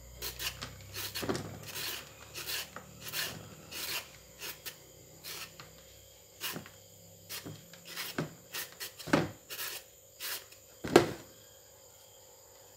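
Julienne peeler shredding a hard green mango, a series of short, irregular scraping strokes. They come quickly for the first few seconds, then more sparsely, with the loudest stroke near the end.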